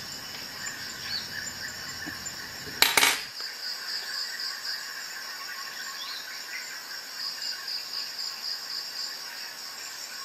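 Crickets chirping steadily in the background, in an even pulsing rhythm. A single sharp knock comes about three seconds in and is the loudest sound.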